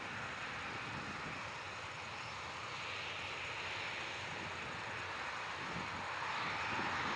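Boeing 737-900ER's CFM56-7B jet engines running at taxi power: a steady rushing sound that grows a little louder near the end.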